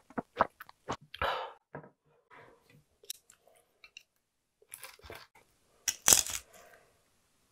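Close-miked gulps of cold soba broth drunk straight from the bowl, about three swallows a second, ending a second in with a breathy exhale. Near the end a brief, loud crackle comes as a piece of crisp fried food is taken up with chopsticks.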